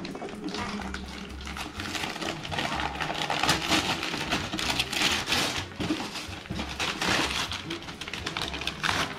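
Gift wrapping paper rustling and crinkling as a present is unwrapped, a dense run of crackles that swells and eases several times.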